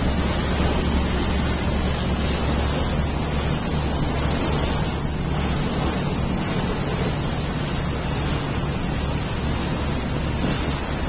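Steady low drone of a river boat's engine under the rush of water and wind buffeting the microphone.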